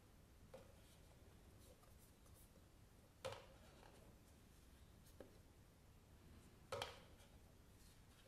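Faint handling of thick paper picture cards: quiet rustle as cards are slid off a stack and laid on a pile, with two sharper card clicks about three and a half seconds apart and a couple of softer ones.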